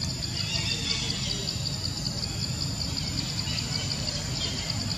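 Insects chirring in a high, fast, evenly pulsed trill that never stops, over a low rumble, with a few faint chirps.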